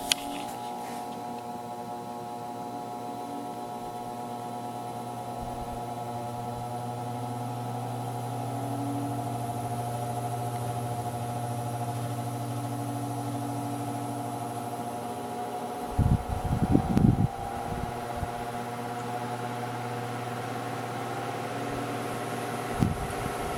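1960s Dominion 12-inch table fan's electric motor running on low speed with a steady mains hum, coming up slightly in level over the first several seconds and then holding steady. Two short low rumbles break in, about sixteen seconds in and near the end.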